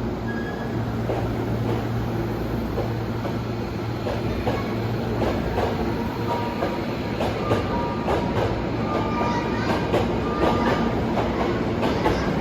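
Hankyu 1000 series electric train moving at the platform, its wheels clicking over rail joints more and more often toward the end. Under this runs a steady low hum, with brief high tones after the middle.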